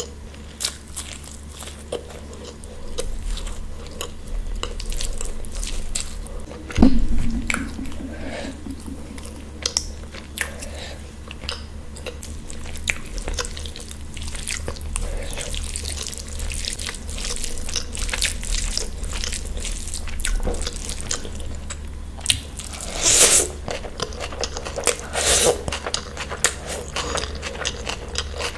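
Close-miked chewing and biting of food, with many wet mouth clicks and a few louder bites near the end. A steady low hum runs underneath.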